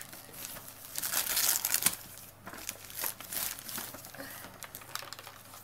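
Shiny gift wrapping paper being torn and crumpled by hand as a present is unwrapped: irregular rustling and tearing, most dense about a second in.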